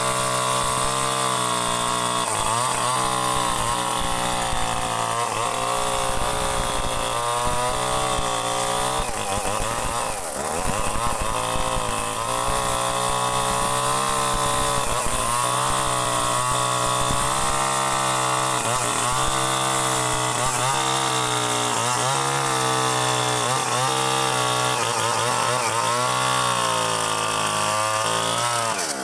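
CDI-ignition two-stroke chainsaw running continuously at high revs, its pitch wavering and dipping briefly every few seconds, with one deeper dip about ten seconds in.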